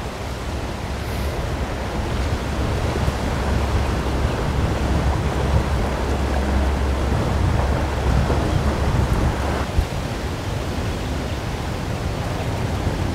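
Steady low rumble of wind buffeting the microphone, over the wash of water and the engines of outboard-powered boats passing close by.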